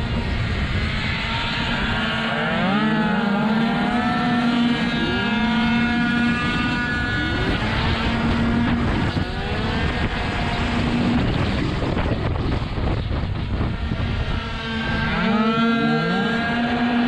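Several tuned two-stroke racing scooter engines buzzing together in a close pack, each one's pitch rising in repeated glides as the riders open the throttle out of corners, dipping briefly a little before the end as they back off for a bend. A low rush of wind on the onboard microphone runs under the engines.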